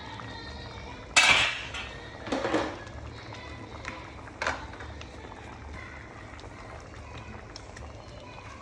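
Cookware and utensils clattering. There are two loud clatters, about one second and two and a half seconds in, then a sharp clink a couple of seconds later and a few light ticks.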